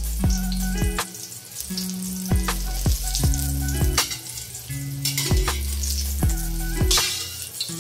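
Eggplant omelette sizzling in hot oil in a wok, the sizzle briefly louder near the end as a spatula lifts it, over background music with deep held bass notes and a kick-drum beat.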